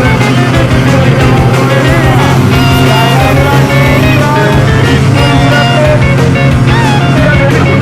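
Rock music with guitar, playing steadily at a loud level.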